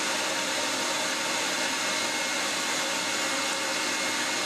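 Table saw running steadily at full speed: a loud, even motor whine over a wide hiss of blade noise.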